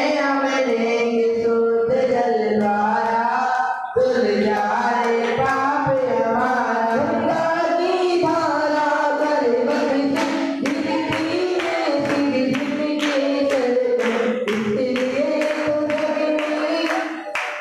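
A group of devotees singing a Jain devotional chant together, with long held notes, joined by rhythmic hand-clapping keeping time from about halfway through.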